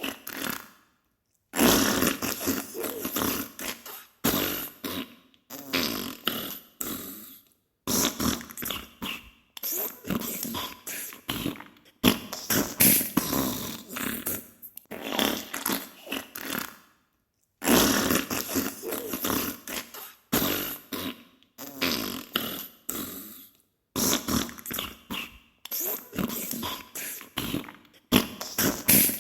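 Diarrhea sound effect: wet, spluttering farts in a quick series of short bursts, with brief silent breaks about a second in and again about 17 seconds in as the effect repeats.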